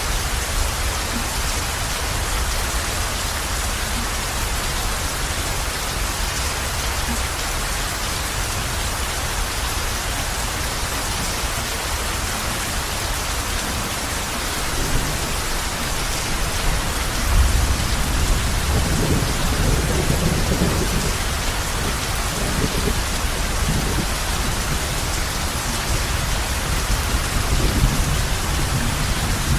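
Heavy rain falling steadily on a roof. About halfway through, thunder rumbles low and long, swelling for several seconds, with another roll near the end.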